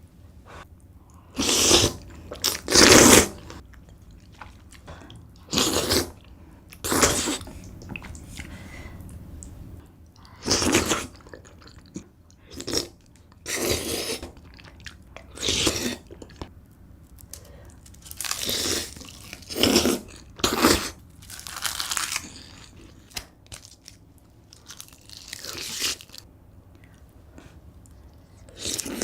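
Close-miked eating sounds of kalguksu noodle soup and kimchi: chewing and crunching in short separate bursts, a dozen or so, every second or two.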